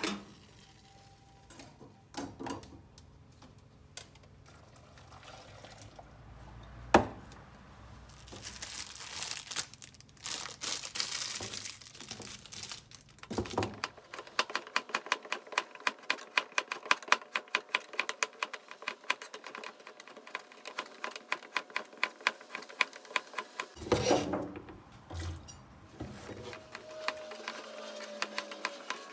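Kitchen knife chopping vegetables (burdock root, then carrot) on a plastic cutting board, in quick, even strokes of about four to five a second, with a short pause between. Before the chopping there is a few seconds of crinkling plastic.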